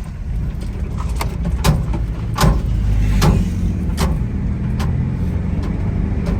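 Car cabin road noise: a steady low rumble from the moving vehicle. About six sharp clicks sound at a fairly even pace over it, roughly one every second.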